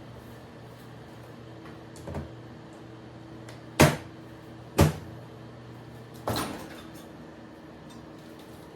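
Kitchen handling sounds over a steady low hum: four sharp knocks and clacks, the two loudest about a second apart in the middle, the last one ringing briefly.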